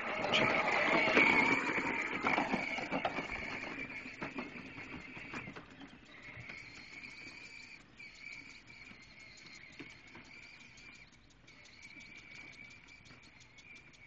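Dog panting and moving close by for the first few seconds, louder than anything after. Then a quieter steady high-pitched chirring tone with faint regular ticks, which breaks off briefly a few times.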